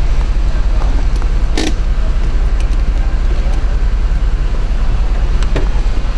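Mercedes-Benz SLK230's retractable hard top working: a steady low hum with creaks from the moving roof mechanism and two clunks, one near the start and one near the end.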